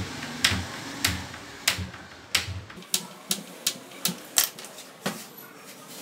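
Hammer knocking nails into a wooden board. A sharp knock with a dull wooden thud under it about every half second, then a quicker run of lighter strikes, and one last knock about five seconds in.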